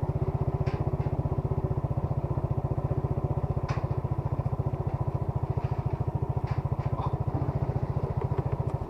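Small engine running steadily with a fast, even pulse, then shut off abruptly near the end.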